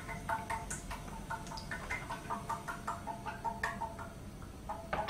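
Cooking oil glugging out of a bottle into a frying pot, a fast, irregular run of short glugs.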